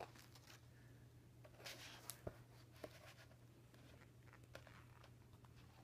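Faint rustle and soft ticks of large book pages being turned by hand, over a steady low hum.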